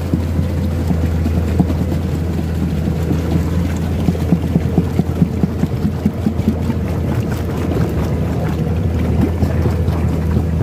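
Excavator's diesel engine running steadily as the machine moves through deep mud, with irregular clicking and knocking over the drone.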